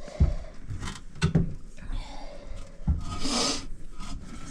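Knocks and rubbing from work on a toilet being reset on a new wax ring and closet bolts, with a louder rough scrape about three seconds in.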